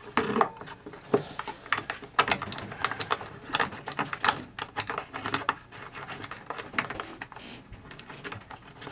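Irregular small clicks, taps and scrapes of the radio's magic-eye tuning indicator tube being handled and fitted into place behind the wooden cabinet's front hole. The clicks fall thickly at first and thin out near the end.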